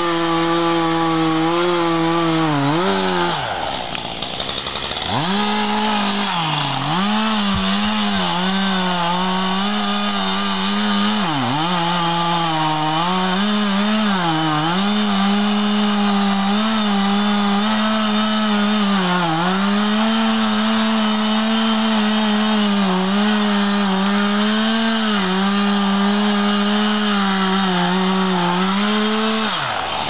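Two-stroke chainsaw running near full throttle while cutting a tree trunk. Its pitch sags and recovers again and again as the chain loads up in the cut, nearly dies away a few seconds in before picking up again, and drops off near the end as the throttle is let go.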